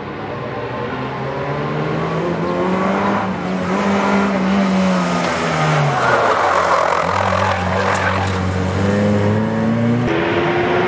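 Race-prepared Ford Puma's engine revving hard through a slalom run: the pitch climbs, drops sharply about five seconds in, then climbs again. A rough burst of tyre noise rises about six seconds in as the car turns.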